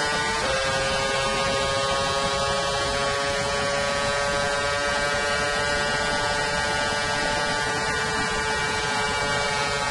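Red Bull RB9's Renault 2.4-litre V8 Formula One engine at full throttle, its high whine dropping in pitch with an upshift to seventh gear about half a second in, then climbing slowly as the car gains speed, with wind rush over the cockpit.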